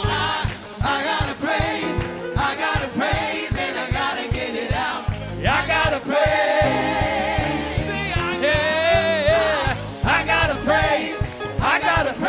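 Live gospel praise music: a band with a steady drum beat under singers, one voice holding a long wavering note about nine seconds in.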